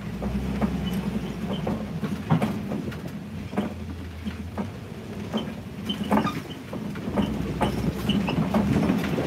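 Open-sided safari ride truck on a rough track: a steady engine rumble with irregular clattering knocks and rattles as the vehicle bounces along.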